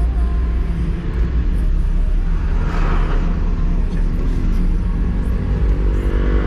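A car driving on the road: steady engine hum and road rumble, with a brief swell of rushing noise about three seconds in.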